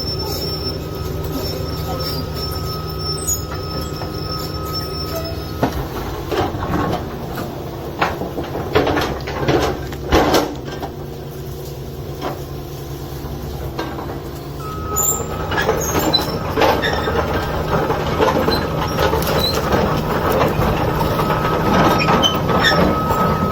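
A digger's diesel engine running under load, with a steady high whine that drops out for several seconds in the middle and then comes back. Several loud knocks and clanks of rock being handled come in the middle stretch.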